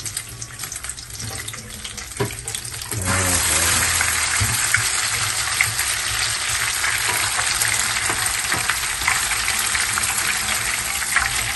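Papaya leaves frying in hot oil in a wok. A light sizzle jumps suddenly to a loud, steady frying hiss about three seconds in, as a batch of leaves goes into the oil, with small clicks scattered through it.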